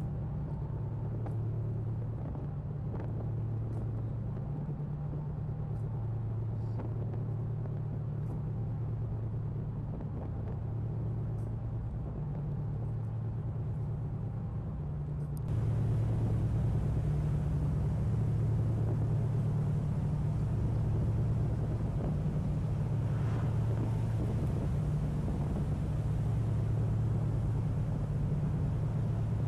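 Deep steady rumble of the icebreaker underway through sea ice, with two low pitches trading places every second or two. It turns louder and fuller about halfway through.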